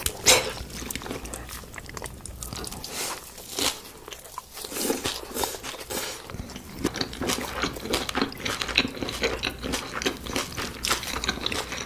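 Close-miked biting and chewing of crunchy food, a dense run of crisp crunches and small clicks, with a loud crunch right at the start.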